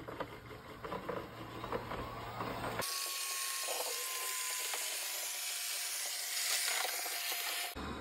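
Proscenic M7 Pro robot vacuum running across a wood floor, with a low hum and light clicks. About three seconds in it turns to a brighter, steady hiss of the suction fan with a faint whine slowly falling in pitch, which stops just before the end.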